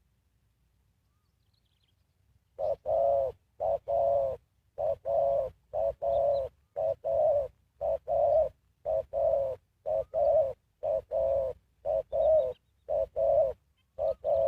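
Spotted dove cooing: after a short quiet, a steady run of low coos in short-long pairs, about one pair a second.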